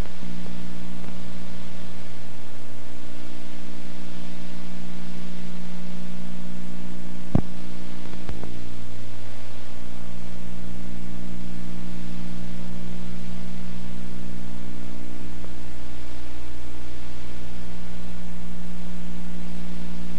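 Steady tape hiss with a constant electrical hum from an old home-video recording, with two sharp clicks a little under a second apart about midway through.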